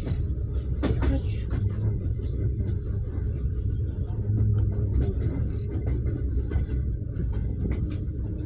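Inside a moving passenger train carriage: a steady low rumble from the wheels on the track, with a sharp clack about a second in.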